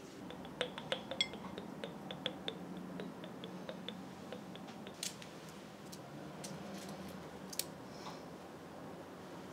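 Oil pouring from a bottle with a pour spout into a glass jar of chopped garlic: a quick run of light ticks for the first few seconds, then a few isolated clicks.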